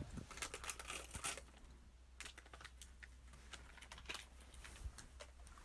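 Faint irregular clicks and light handling noises of small objects in the hands: a quick cluster in the first second and a half, then sparser clicks.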